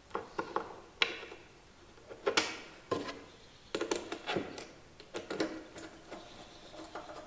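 Scattered clicks and knocks of hardware and wood being handled as a plywood fence is fitted and bolted down onto a miter saw, with no power tool running.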